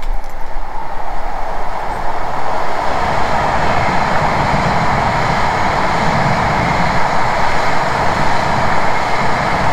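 Hokkaido Shinkansen train running past at speed as it leaves the Seikan Tunnel: a loud, continuous rushing noise that fills out and deepens about two seconds in.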